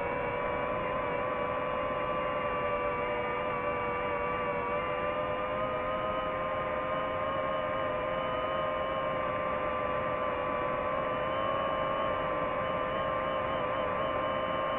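DJI FPV drone's motors and propellers whining at a nearly steady pitch over a hiss of moving air, several close tones wavering only slightly.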